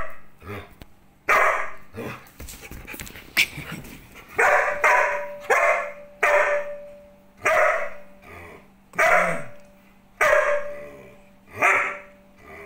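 A Samoyed barking over and over, about eight barks a second or so apart, some drawn out with a held pitch. The dog is barking to be let outside.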